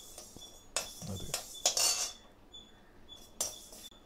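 Metal spatula scraping and clinking against a nonstick kadai while stirring dry-roasting fenugreek seeds, in a few short strokes, the longest about two seconds in. The seeds are being roasted until almost blackish.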